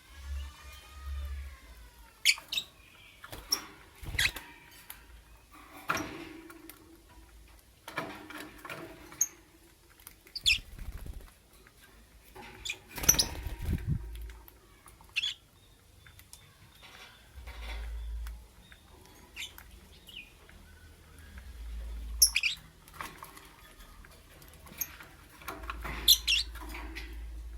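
Lovebirds giving short, sharp chirps at irregular intervals, with soft rustling and knocking between the calls.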